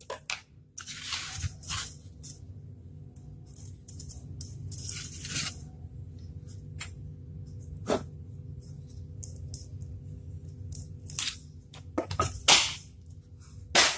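Styrofoam pieces being handled and broken by hand: several bursts of rustling and crunching, with a few sharp clicks in between.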